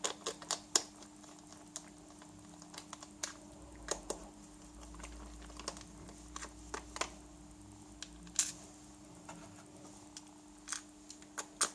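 Scattered small clicks and taps of a plastic wind-up dynamo flashlight being put back together and its screw driven in, over a faint steady hum.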